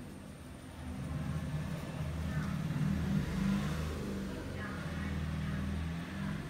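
A low, steady engine-like hum that swells about a second in, is loudest midway and eases off near the end.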